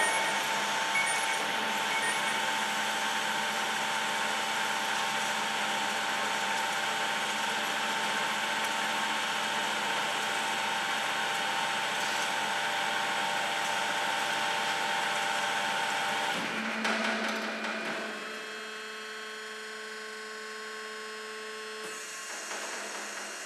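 Bomar Transverse 610.440 DGH band saw running with no load, a steady whine over a hiss, while its arm travels down and back up under hydraulic power. About two-thirds through the sound changes and settles into a quieter hum with a lower steady whine.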